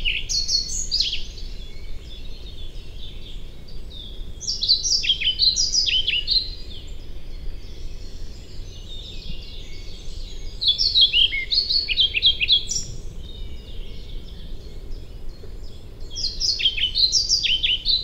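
European pied flycatcher singing: clear, rhythmic phrases about two seconds long, repeated every few seconds, their notes jumping back and forth between high and low.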